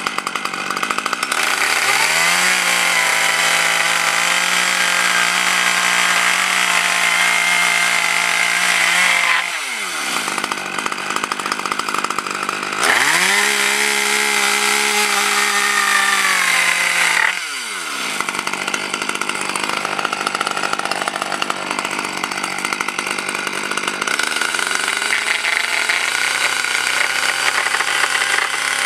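Small two-stroke chainsaw cutting a board, held at high revs through two long cuts, the first of about eight seconds and the second of about four, dropping back to a lower engine speed between them and after.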